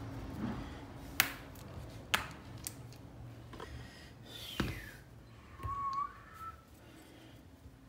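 Small bicycle parts and tools being handled during assembly: several sharp metallic clicks, a short falling squeak about four and a half seconds in, and a brief high squeak near six seconds.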